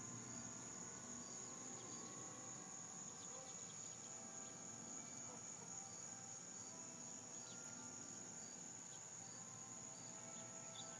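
A steady, high-pitched insect trill runs throughout, with a softer chirp repeating at an even pace.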